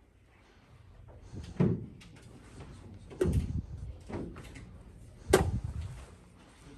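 Three sharp knocks, each with a short ring-out, about a second and a half to two seconds apart. The last, a little past five seconds in, is the loudest.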